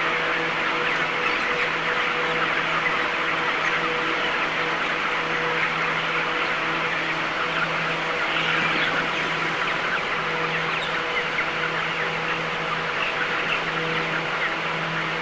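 A dense, crowded flock of broiler chickens calling all at once, many overlapping chirps and clucks in a continuous din, over a steady low machine hum.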